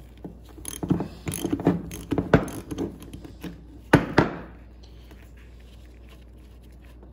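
Socket ratchet clicking and knocking in an irregular run for about four seconds as it loosens a pipe fitting on an old mechanical fuel pump.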